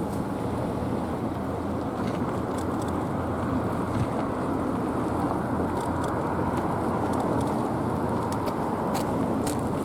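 Fire engines and emergency vehicles of a convoy driving by: steady engine and tyre noise, with wind on the microphone.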